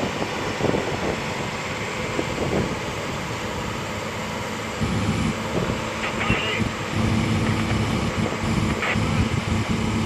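Long-arm excavator's diesel engine running, with a steady engine hum that grows louder about halfway through.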